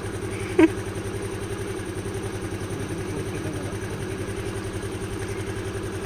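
A vehicle engine idling steadily with a fast, even pulse. There is one brief sharp sound just over half a second in.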